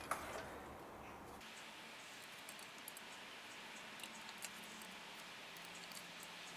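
Faint, scattered small clicks of new spark plugs being handled and dropped into the engine's spark plug wells, over quiet room tone.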